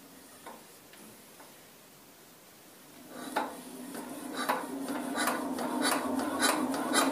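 8 HP single-cylinder diesel engine, just fitted with new piston rings, being hand-cranked to start it. Quiet at first; about three seconds in a run of metallic clacks begins, coming faster and louder as the cranking speeds up.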